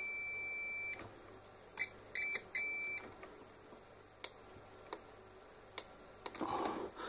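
Multimeter's continuity buzzer beeping while a multicooker control-board push button is pressed between the probes. It gives one beep of about a second, then three short broken beeps, the sign of a button that does not respond properly to pressing. Two faint clicks follow later.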